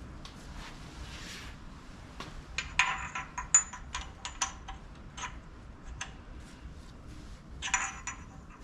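Small metal parts and tools clinking and clattering together, a run of sharp metallic clinks with a bright ring about two and a half seconds in and another cluster near the end.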